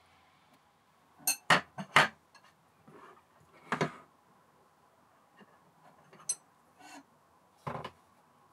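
Metal lathe parts knocking and clinking together as they are handled: the round bed rails of an Emco Unimat SL tapping against each other and against the saddle casting. A quick run of four sharp knocks comes just over a second in, then a few more spaced out, one with a brief metallic ring.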